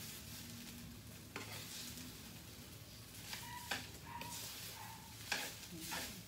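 Fried rice sizzling in a pan as a spatula stirs it, with a steady frying hiss broken by several sharp scrapes and knocks of the spatula against the pan.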